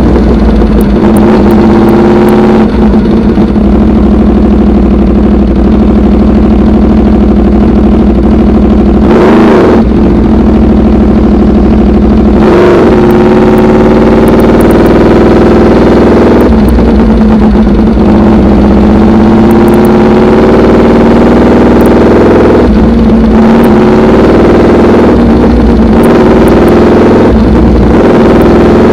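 Aprilia RSV4 Factory's V4 engine through an SC-Project CRT exhaust, loud and close. It runs at low revs with two quick throttle blips about a third of the way in, then in the second half the revs climb in steps, each broken by a short dip, as the bike pulls away.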